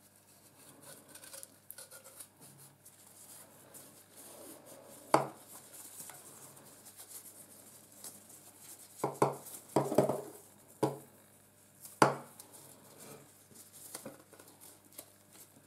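Gloved hands handling and unwrapping crab cart bait over a glass chopping board: faint rustling and handling noise, broken by a handful of sharp taps and knocks as pieces are set down. The loudest knocks come about five seconds in and about twelve seconds in, with a few more around nine to ten seconds.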